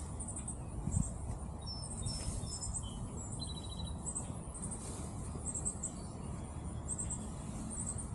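Outdoor background of small birds chirping: short high chirps repeat about once a second, with a few brief whistled notes, over a low steady rumble.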